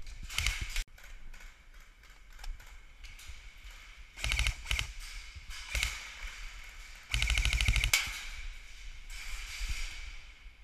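Several bursts of rapid automatic fire from game guns, with a few single shots between them; the longest burst lasts about a second, past the middle.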